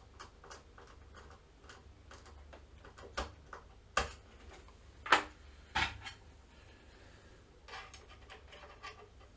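Small screwdriver and plastic-part clicks as the screw holding an NVMe SSD in the PS5's expansion slot is done up: faint, even ticks throughout, with four louder sharp clicks in the middle.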